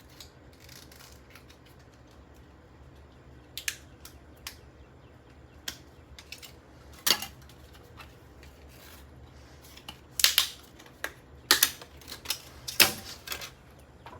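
Plastic of a 3.5-inch floppy disk cracking, clicking and snapping as it is pulled apart: scattered sharp snaps, a few at first and then a quicker cluster in the last few seconds.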